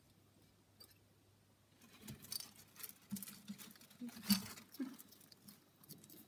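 Bearded dragon feeding from a plastic cup: a run of scratchy clicks and rustles, starting about two seconds in and loudest a little after four seconds.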